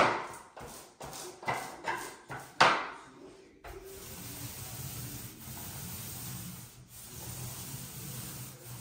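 A few sharp knocks and clatters, the loudest about two and a half seconds in, then the steady rubbing swish of a paint roller on an extension pole being rolled over a wall.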